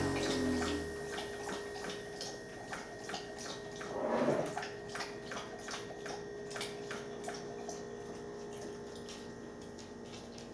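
Light, irregular clicking and tapping, a few clicks a second, over a faint steady hum, with a brief rushing swell about four seconds in. Background music fades out at the start.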